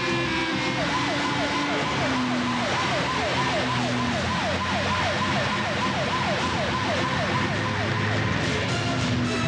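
Police siren wailing in quick repeating falling sweeps, about three a second, dying away near the end.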